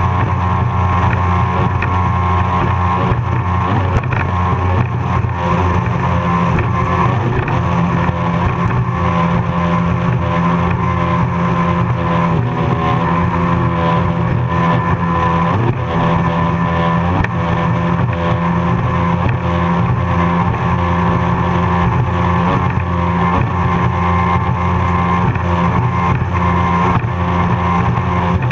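Racing powerboat's engines running hard at a steady, unbroken note as the boat runs at racing speed through rough water, with the hiss of spray and water rushing past the hull.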